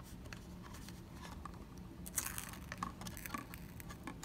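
Faint paper rustling and small plastic clicks as the protective paper seal is peeled off a BB cream cushion compact, with a brief louder crinkle about two seconds in.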